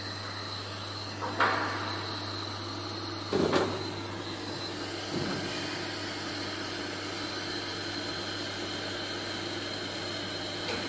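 Hands working on the metal fittings and pneumatic air tubes of a tube-filling and sealing machine: a few short knocks and clicks, the loudest a quick double knock about three and a half seconds in, over a steady low hum.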